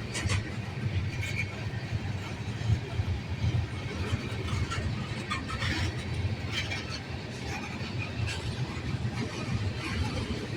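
Train rolling past: a steady low rumble with scattered short clicks and squeaks.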